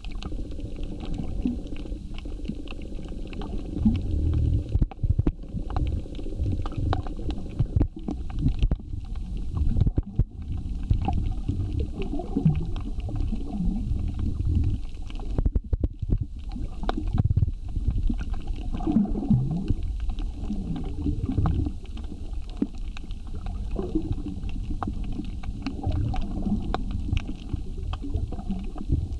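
Underwater reef sound: a low, muffled rumble with gurgling, and a steady scatter of small clicks.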